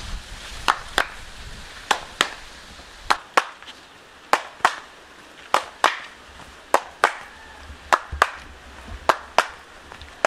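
Hand claps in a steady rhythm: sharp claps mostly in quick pairs, a pair a little over once a second, from two people clapping in a dance game.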